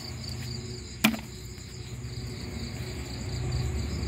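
Crickets chirping in a steady, even pulsing rhythm, with one sharp click about a second in and low handling and rustling noise that grows louder toward the end.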